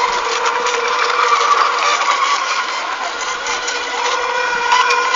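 Electric radio-controlled racing boats running together, their motors giving a steady whine at several pitches at once over a noisy hiss.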